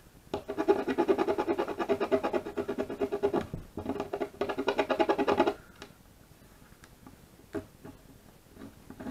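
Knife blade scraping across the face of a lithium coin-cell battery to clear a sticky backing from its terminal: a fast, chattering, pitched squeal in two spells, stopping about five and a half seconds in. A few light clicks follow near the end.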